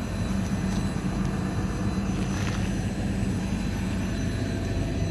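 Steady mechanical hum of an idling engine and the Power Gear hydraulic leveling pump running while the motorhome's leveling jacks extend.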